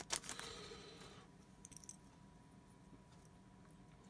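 Clear plastic zip bag crinkling briefly as it is opened, then a few faint clicks of the small white-metal figures tipped out of it.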